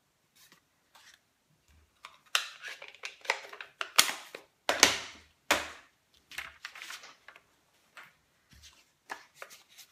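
Paper rustling and sliding as sheets of cardstock and scrap paper are handled and cleared from a table, mixed with light clicks and knocks of stamps and an ink pad being set down; the rustling is loudest in the middle.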